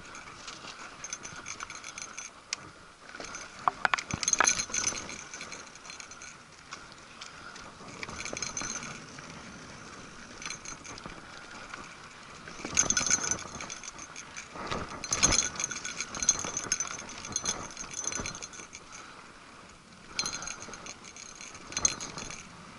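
Mountain bike rattling and clinking as it rides over a bumpy dirt trail, with louder bursts of clatter over bumps about four seconds in and twice more past the middle.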